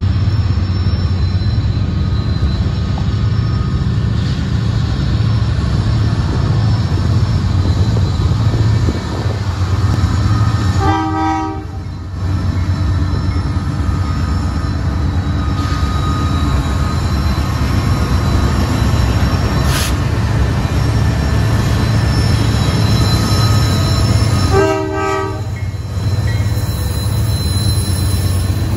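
Approaching diesel freight locomotives led by a Kansas City Southern unit, a steady low rumble that grows as the train nears. The horn sounds two separate blasts, about a second each, roughly eleven and twenty-five seconds in.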